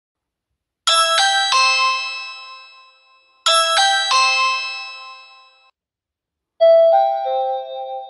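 Ring Chime doorbell chime playing its 'Ring Default' tone twice: three quick bright notes that ring out and fade, twice in a row. Near the end the 'Ring Alert 2' tone begins, a different chime with lower, longer-held notes.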